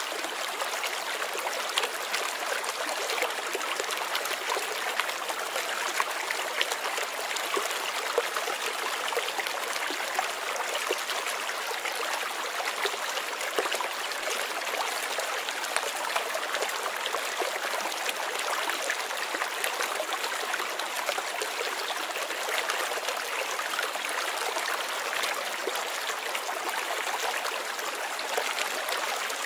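Flowing water in a stream, running steadily with a dense, even trickle and splash.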